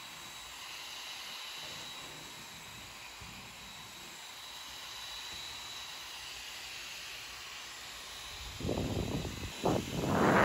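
Small 24 V blower fan on a homemade soldering-iron hot air gun running steadily, a soft hiss of moving air with a faint high whine. Near the end, loud gusty rushing as the nozzle's airflow is pointed at the microphone.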